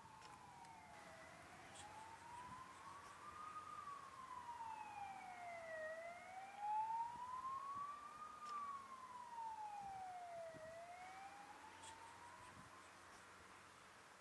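Emergency-vehicle siren wailing faintly, its pitch rising and falling slowly, about one full cycle every four to five seconds. It grows louder toward the middle and fades away near the end.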